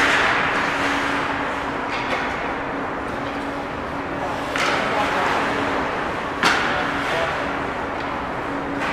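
Ice hockey play heard through the rink glass: skate blades scraping the ice and a few sharp stick-and-puck cracks, over a steady low hum.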